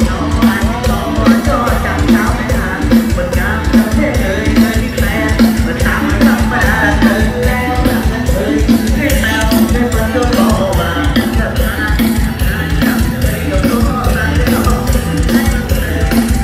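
Loud live band music over a stage sound system: a drum kit keeping a steady beat under singing.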